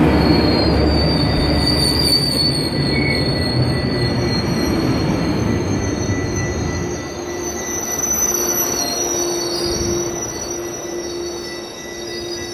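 Metrolink bilevel passenger coaches rolling past and slowing to a stop. Their wheels rumble, easing off after about halfway, under high-pitched squealing from the braking wheels.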